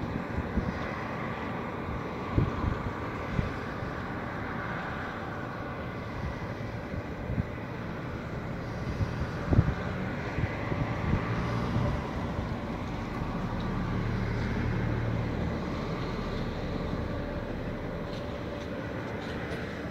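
A dredger's engine running steadily at work, heard across the water as a continuous drone with a faint whine. The hum swells for a few seconds past the middle. A few short low thumps stand out, about two seconds in and again near the middle.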